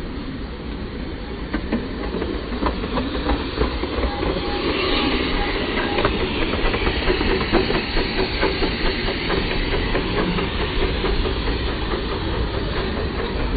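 A 5-inch gauge miniature live-steam locomotive running along the track: steam hissing and wheels clicking over the rails. The hiss swells about five seconds in.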